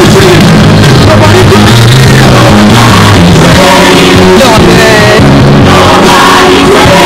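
Loud music track with singing over a steady bass line.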